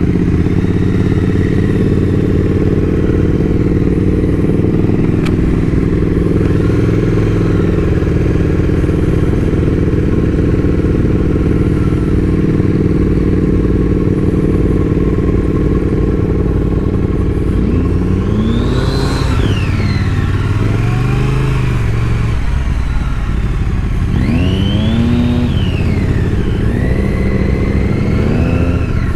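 Triumph motorcycle engines running under way, a steady, loud drone. The revs climb and drop in quick rising and falling glides about two-thirds of the way in, and again near the end.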